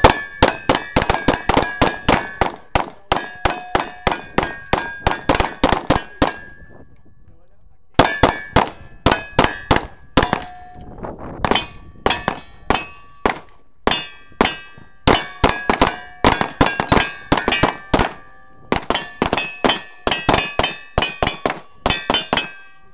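Rapid handgun fire at steel plate targets: quick strings of shots, about three a second, each followed by the ringing clang of a struck steel plate. The firing stops briefly about six seconds in, then carries on in strings until near the end.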